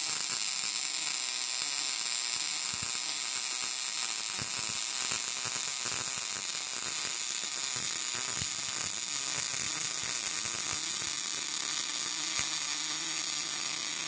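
MIG welding arc laying a bead on steel plate: a steady crackling sizzle.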